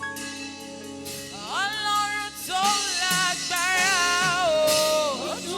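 Gospel singing: a single voice with vibrato glides in about a second and a half in and sings a long ornamented line over held instrumental chords.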